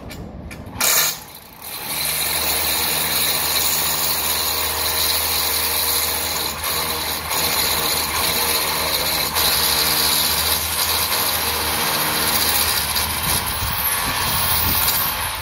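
A power drill drilling overhead, boring a fixing hole for window framing, running steadily at one pitch for about thirteen seconds. A sharp knock comes about a second in, just before the drilling starts.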